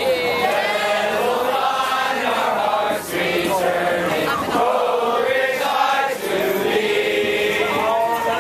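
A large group of marching band students singing together in phrases, with brief breaths between lines.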